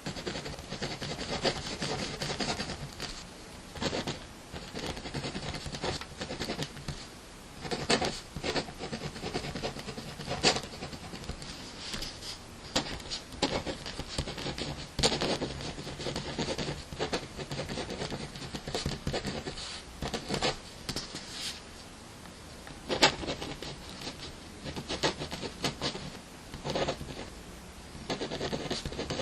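A pen or pencil scratching across paper in stretches of handwriting strokes, broken by short pauses, with a few sharper taps.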